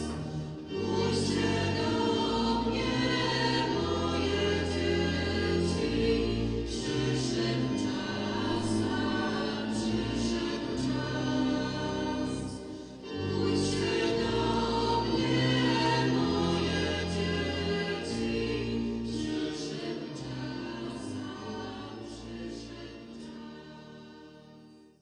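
A choir singing a Marian hymn over instrumental accompaniment with long held bass notes, briefly dipping about halfway and fading out over the last few seconds.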